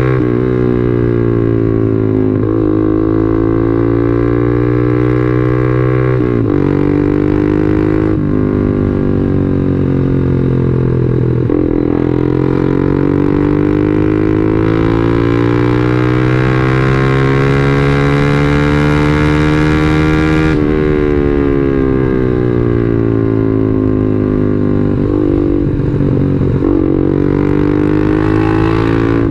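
Yamaha Jupiter MX 135 single-cylinder four-stroke motorcycle engine running under way, its drone climbing in pitch as the bike pulls and dropping sharply several times, near 6, 8, 11 and 20 seconds in, as the revs fall; the longest climb runs for about eight seconds before the last drop.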